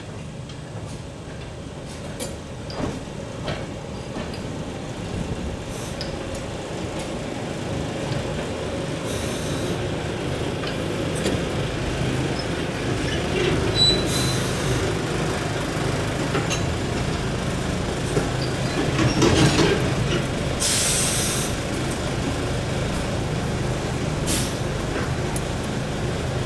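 Small narrow-gauge diesel railcar hauling two wooden coaches slowly past at low speed, its engine running under a growing rumble and the wheels clicking over the rail joints. A few short hisses and a brief squeal come as the train slows.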